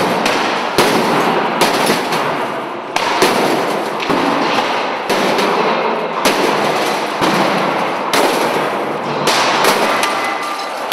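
Household appliances being smashed with sledgehammers and metal poles: heavy blows on sheet-metal casings, irregular and roughly once a second, with a continuous crashing din of metal and debris between them.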